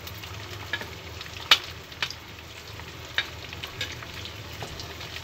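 Ghee sizzling gently around dried fruits and nuts frying in a non-stick kadai, with a few sharp clicks of a spoon against a plate and the pan as slivered almonds are pushed in; the loudest click comes about one and a half seconds in.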